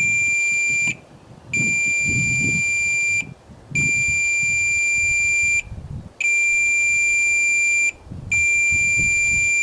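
Multimeter continuity beeper giving a steady high tone five times, each for a second or two, with short breaks as the probe moves from one zone terminal of an irrigation controller to the next. Each tone signals that the zone wire is connected through to its valve solenoid.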